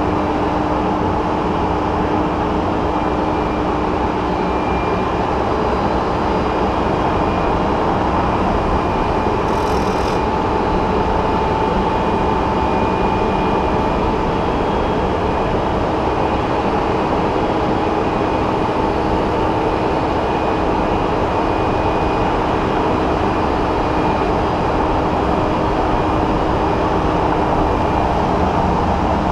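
Steady mechanical drone of a boom truck crane's engine and hydraulics running, with faint steady whining tones, picked up by a camera hanging from the crane hook.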